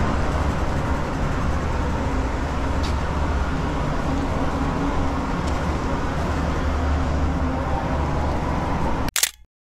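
Steady low rumble of outdoor noise, cut off by a sharp click about nine seconds in, after which the sound drops out completely.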